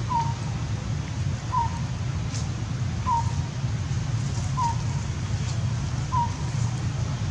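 A bird calling: a short, slightly falling note repeated five times, about every one and a half seconds, over a steady low rumble.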